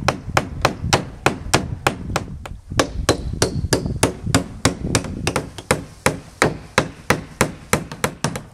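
Hammer driving nails into a plywood board across a cabin door: steady, rapid blows about three a second, with one brief pause about two and a half seconds in.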